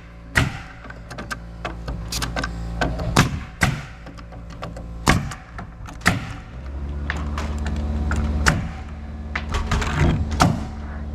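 Nails being driven into roof sheathing: about a dozen sharp, irregularly spaced knocks, over a steady motor hum that gets louder about six and a half seconds in.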